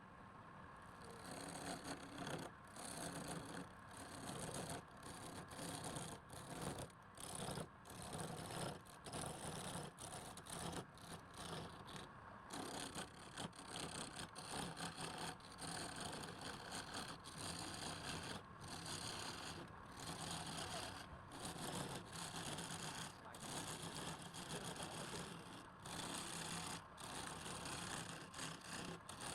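Wood lathe running steadily, a continuous motor whir that drops out briefly many times.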